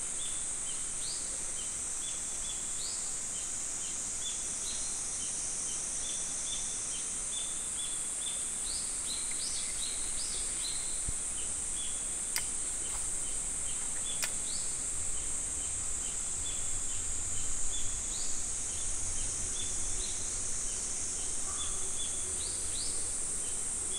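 Steady high-pitched insect drone, with birds chirping in short repeated notes over it and two sharp clicks near the middle.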